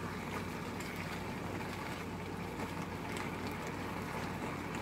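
Black beans and onions sizzling steadily in a nonstick frying pan as they are mashed, with a few faint taps and scrapes of the masher against the pan.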